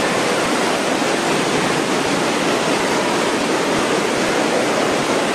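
Floodwater rushing and churning through a subway tunnel, a steady loud wash of turbulent water.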